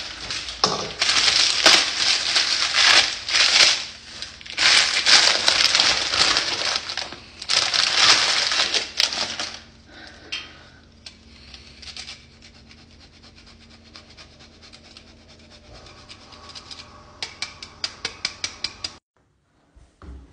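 Plastic bag of grated Parmigiano crinkling and rustling in three long spells while it is handled, followed by quieter handling and a quick run of light clicks near the end.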